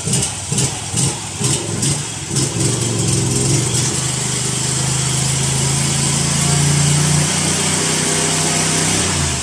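Predator EFI V-twin engine running, blipped on the throttle about twice a second for the first couple of seconds, then held at a steady higher speed that creeps up a little before dropping back near the end.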